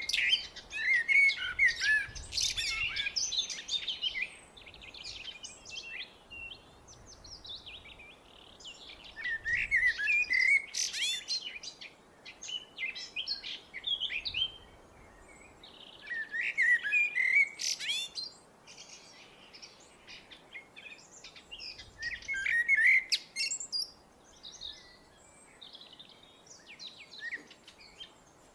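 Blackbird singing: four song phrases roughly six seconds apart, each a run of warbling notes ending in high twittering, with fainter chirps between phrases.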